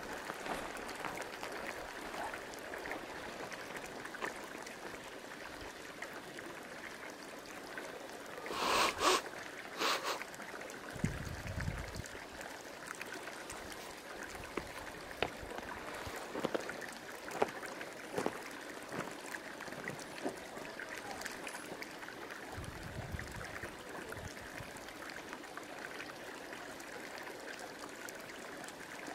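Geothermal hot-spring pond bubbling and gurgling: a steady watery wash with many small scattered pops, and a brief louder surge about nine seconds in.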